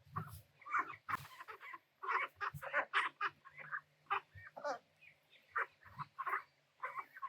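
Small domestic ducks calling in a busy run of short, quick calls, several a second, at a moderate level.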